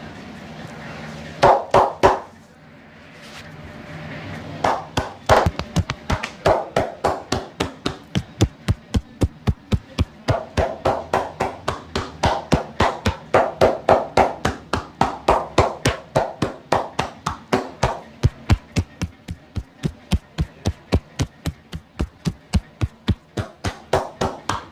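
Percussive massage strokes from a barber's hands: fast, even tapping and chopping, about three strikes a second, some with a hollow, cupped-hand pop. There are two louder strikes near the start.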